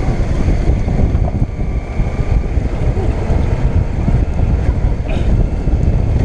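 Motorcycle riding along a road, wind rushing over the microphone with the engine running steadily beneath it.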